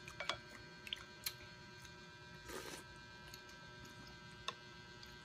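Faint eating sounds over a steady electrical hum: a few light clicks of wooden spoons against the glass bowl, and one short slurp of sinigang broth about two and a half seconds in.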